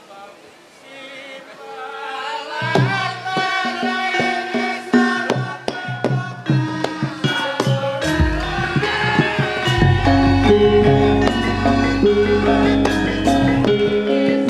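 Javanese gamelan music: struck pitched percussion with hand-drum strokes, entering loudly about three seconds in after a quieter opening, with a deep bass tone sounding through the second half.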